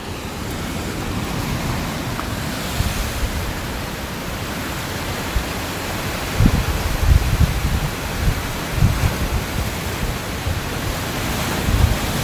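Steady hiss of wind and surf on an open rocky shore, with wind buffeting the microphone in low gusts from about six seconds in.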